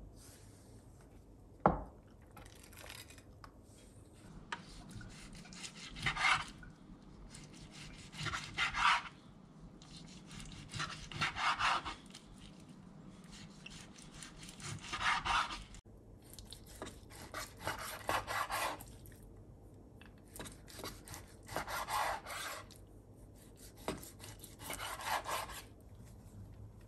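Knife slicing raw chicken breast into strips on a bamboo cutting board. Short bursts of sawing strokes every few seconds, with the blade rasping against the wood. A single sharp knock about two seconds in is the loudest sound.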